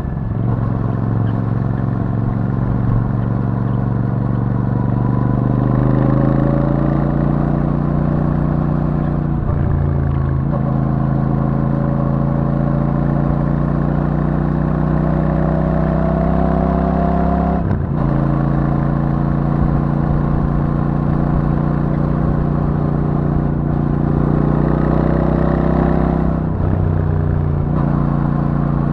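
Royal Enfield Super Meteor 650's 648 cc parallel-twin engine through its stock exhaust, pulling under throttle. The pitch climbs steadily, then drops briefly three times, about a third of the way in, a little past halfway and near the end, as it shifts up a gear.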